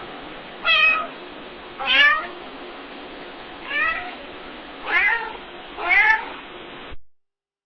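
A domestic cat meowing five times: short meows about a second apart over a steady background hiss.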